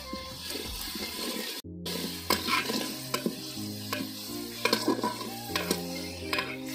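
A metal spatula scraping and stirring round a metal pot of onions and garlic paste frying in hot oil, with the oil sizzling; a stroke every half second or so. The sound cuts out completely for a moment about a second and a half in.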